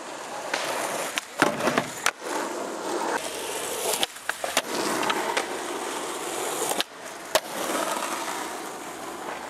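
Skateboards rolling on asphalt with a steady hiss of the wheels, broken by sharp clacks and knocks as boards pop, strike a wooden box obstacle and land. The loudest clacks come about one and a half to two seconds in and again about seven and a half seconds in.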